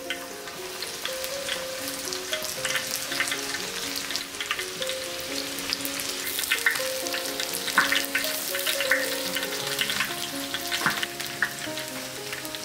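Breadcrumb-coated meat pieces deep-frying in hot oil in a large iron wok, the oil sizzling steadily with many small crackling pops.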